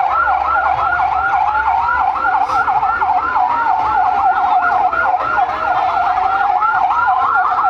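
Two sirens sounding together: a fast yelp warbling about four times a second, over a slower wail that rises and falls every few seconds.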